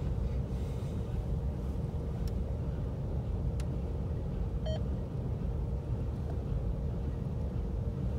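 Steady low rumble of an idling engine with a steady hum over it, and one short high beep about halfway through.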